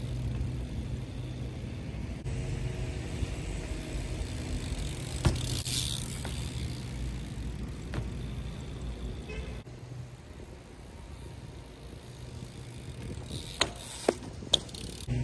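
BMX bike riding along, its tyres rumbling and hissing on the ground with a steady low hum. A few sharp clicks and knocks from the bike, three in quick succession near the end.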